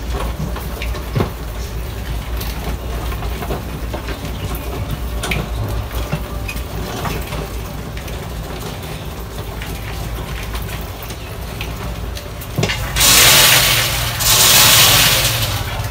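A crowd of mice scrambling over a glass box, with many small scratching clicks of claws over a steady low hum. Near the end come a sharp knock and then two loud hissing rushes, each about a second long.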